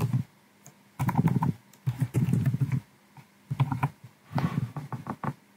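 Typing on a computer keyboard in four short bursts of key clatter.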